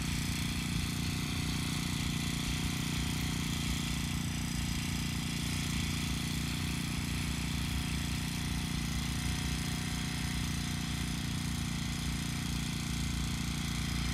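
Small brush cutter engine idling steadily, with no rise in revs.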